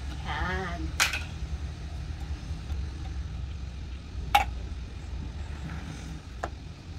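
Steady low hum, with a sharp knock about a second in, a louder one about four seconds in and a fainter one near the end.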